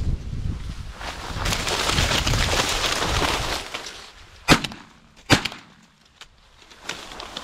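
Dry corn stalks and leaves rustling as a hunter pushes through standing corn, followed by two sharp, loud cracks less than a second apart, about halfway in.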